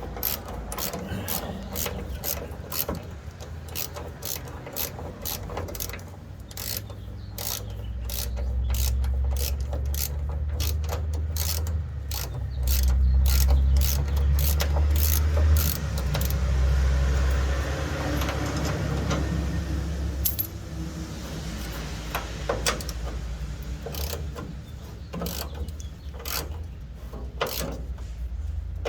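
Hand socket ratchet clicking in repeated runs as it backs out rear bumper bolts. A low rumble swells up through the middle and is the loudest thing there.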